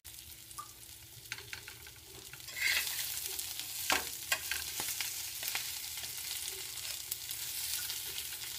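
Marinated baby goat chops sizzling as they shallow-fry on an iron tawa, with a spatula scraping and tapping against the pan as the chops are pressed and turned. The sizzle grows louder about two and a half seconds in.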